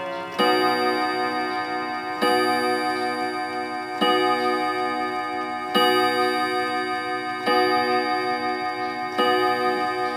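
Antique German wall clock striking on its nickel-silver gong rods: six evenly spaced strokes about one and three-quarter seconds apart, each a bright multi-tone ring that dies away slowly before the next.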